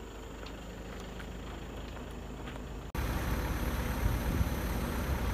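An engine running steadily at idle. About three seconds in, the sound cuts abruptly to a louder, rougher engine rumble.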